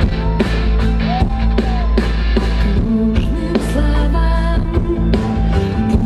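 Live rock band playing an instrumental passage: a steady drum-kit beat over bass and gliding guitar lines.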